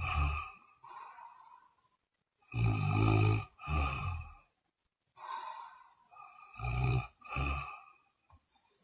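A woman snoring in her sleep. Twice, a softer breath is followed by a loud snore in two quick pulses, the cycles about four seconds apart.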